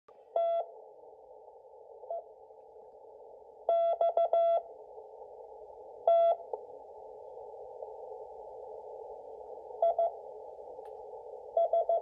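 Slow Morse code from W1AW's 5 wpm code practice transmission, received on an Icom IC-718 HF transceiver in CW mode. A single beeping tone is keyed in short dots and longer dashes, with long gaps between characters, over steady narrow-band receiver hiss.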